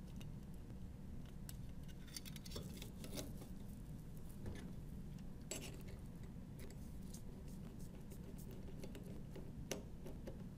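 Faint, irregular small clicks and handling noises from a screw, lock washer and bearing being fitted into metal robot-kit brackets and tightened with a small screwdriver, over a steady low hum.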